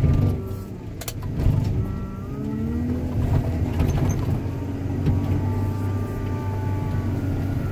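Diesel engine and hydraulic pump of a scrap material handler running, heard inside its cab, the hydraulic whine rising and falling as the grapple tears at a junked car. A couple of sharp metal knocks come about a second in.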